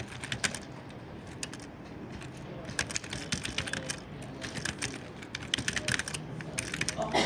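Typing on a computer keyboard: quick runs of key clicks in bursts, with short pauses between runs.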